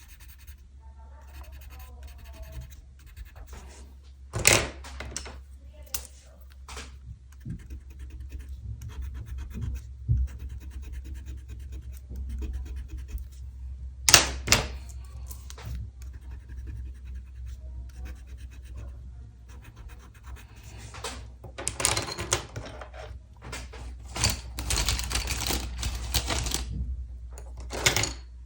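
A pen scratching across paper in strokes of varying length, heaviest near the end, with two sharp knocks about four and fourteen seconds in.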